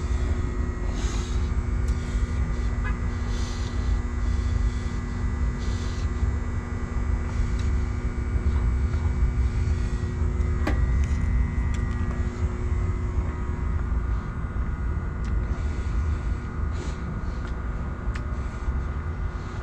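Train station ambience: a steady low rumble under a constant droning hum of several fixed tones, with a few faint clicks.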